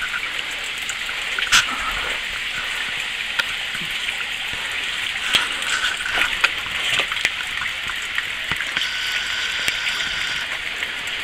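Waterfall pouring and splashing steadily, a constant rushing hiss, with a few sharp drips ticking close by.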